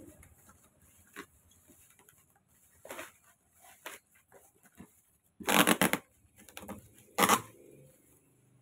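Plastic wrapping and cardboard packaging rustling and crinkling in short bursts as a wrapped stage light is worked out of its box. The two loudest crinkling bursts come a little past halfway through, about two seconds apart.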